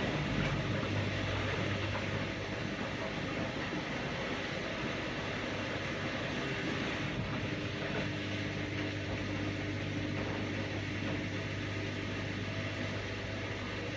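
Washing machine running: a steady low hum under an even rushing noise, with no breaks.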